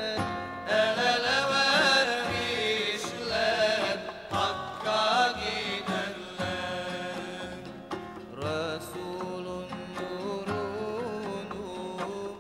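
Choir singing an ilahi, a Turkish-language Islamic devotional hymn, in ornamented melodic lines that waver in pitch.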